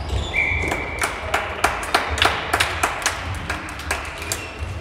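Rapid sharp clacks of floorball sticks striking the plastic ball and each other during play, well over a dozen in about three seconds, with a short high squeak near the start.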